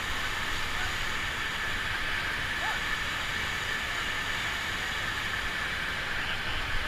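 Whitewater rapids rushing steadily, an even noise of churning river water.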